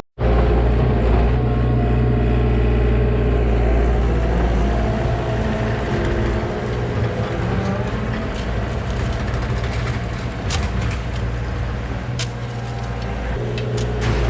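Heavy diesel machine engine running steadily under load, with a few sharp knocks in the second half.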